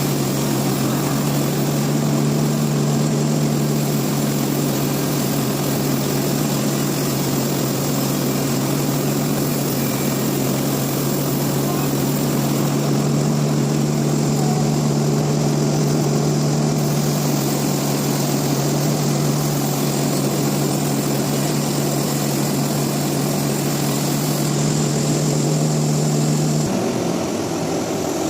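Sawmill machinery running with a loud, steady hum under a wash of mechanical noise. Near the end the hum cuts off and a quieter running noise carries on.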